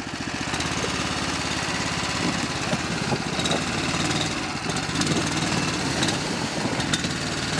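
Small Honda engine of a Husky tracked snow sled running under load as it drives over snow and branches, its pitch rising and falling. A few sharp cracks sound in the second half.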